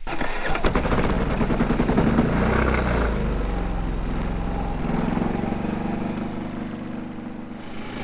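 Engine cold-starting in 6-degree air: it fires up suddenly, its speed climbs and wavers for a few seconds, then eases down and gets quieter toward a steady idle near the end.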